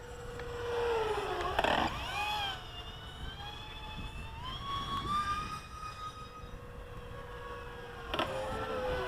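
Electric ducted-fan jet whine of a radio-controlled A-10 model flying, its pitch swooping down with a rush of noise as it passes about two seconds in and again near the end, with rising and falling whine from throttle changes in between.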